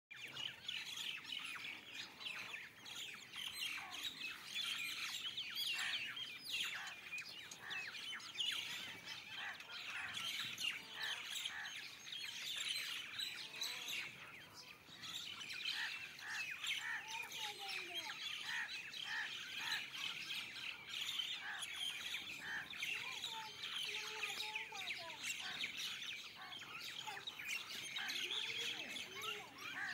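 Many small birds chirping at once, a dense unbroken chatter of overlapping short, high chirps. In the second half a few lower, gliding calls stand out from it.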